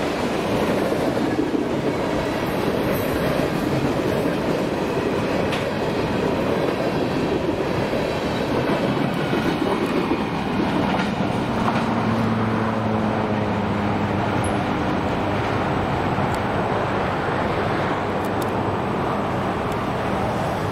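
Freight cars of a long CSX train rolling past, gondolas and hoppers: a steady rumble of wheels on rail with clickety-clack over the rail joints. A steady low hum joins about halfway through.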